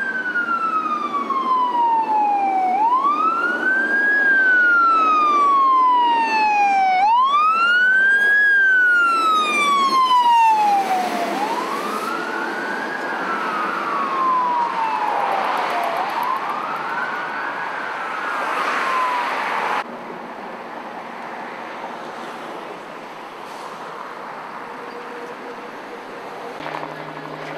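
Fire engine siren on a wail: each cycle rises quickly and falls slowly, about every four seconds, five times over. It cuts off suddenly about twenty seconds in, leaving a quieter steady background of street noise.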